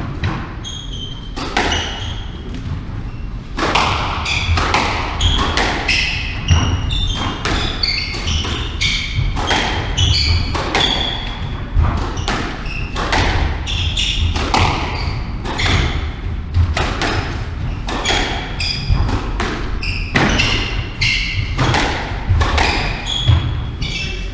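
A squash rally: the ball cracking off rackets and the court walls about once or twice a second, with short high squeaks of shoes on the wooden court floor between the hits.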